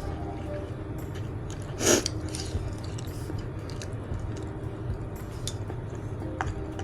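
Close-miked chewing and wet mouth sounds of someone eating kimchi jjigae, with small clicks scattered throughout. One short, loud, noisy sound comes about two seconds in.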